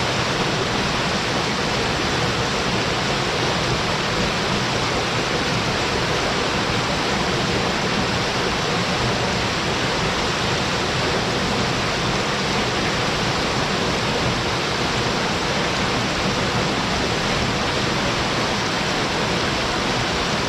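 Small waterfall with a short drop but a strong flow, water pouring into its plunge pool in a steady, even rush.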